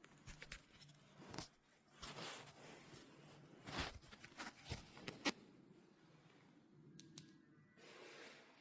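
Faint handling noise: scattered small clicks and brief rustles, with the sharpest click about five seconds in.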